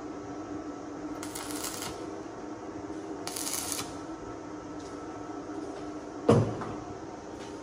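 Car-body workshop sounds: a steady hum, two short hissing bursts in the first four seconds, and a single sharp knock about six seconds in.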